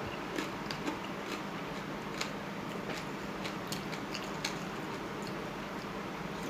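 Someone eating noodles: chewing and mouth sounds with scattered small clicks, over a steady low hum.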